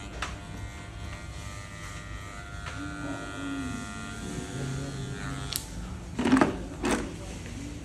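Cordless electric hair clipper buzzing steadily as it cuts hair, stopping about five seconds in. Two short, louder noises follow near the end.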